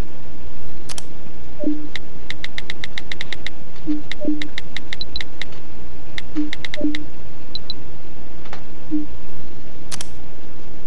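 Smartphone touch-keyboard clicks as someone types, in quick runs of about eight taps a second. Six short low pops come in between, and a sharp click sounds about a second in and again near the end.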